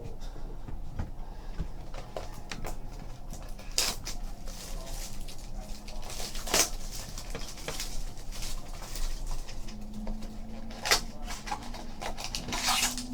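Trading cards and packs handled on a table: soft rustling and small taps, with a few sharper crinkling snaps as packs are opened and cards are shuffled.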